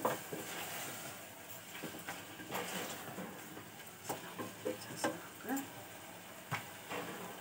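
Wooden spatula stirring and scraping frying onions and mutton in an aluminium pressure cooker, with a few short knocks and clatters against the pot.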